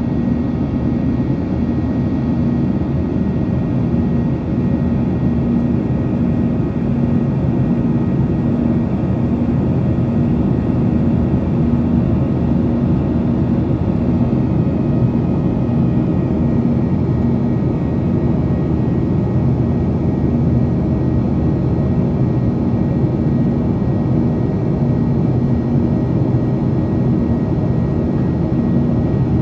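Steady in-flight cabin drone of a Boeing 737's turbofan engine, heard from a window seat beside the engine, with a steady low hum under it. A faint high whine falls slightly in pitch about halfway through.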